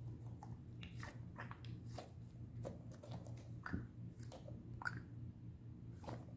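Soft rubber banana squishy toy squeezed and kneaded in the hand, giving irregular short squeaks and squelches, roughly one a second.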